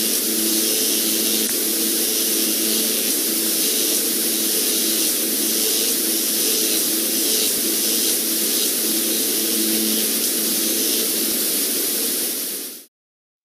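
Electric static sound effect: a steady hiss with a low buzzing hum underneath, cutting off abruptly near the end.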